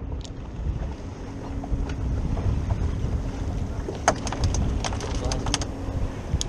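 Wind buffeting the microphone on an open boat, with a faint steady hum underneath. A run of sharp clicks comes about four to five and a half seconds in.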